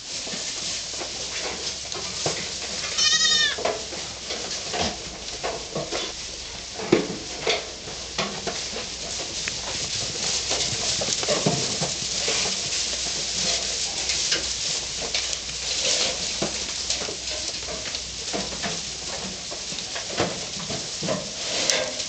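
Goats bleating in a crowded shed, with one clear bleat about three seconds in, over continual rustling and small knocks of straw and hay as the goats move and feed.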